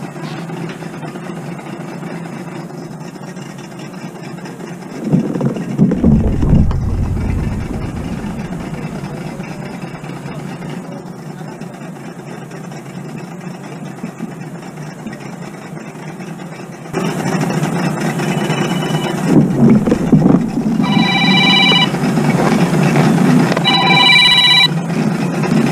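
Mobile phone ringing twice near the end, a ringtone of several tones at once, over a steady low hum that grows louder about two-thirds of the way through. A louder low rumble comes about five seconds in.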